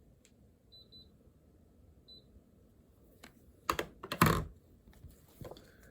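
A few sharp clicks and knocks at a desk, the loudest pair about four seconds in, preceded by two faint, short high beeps.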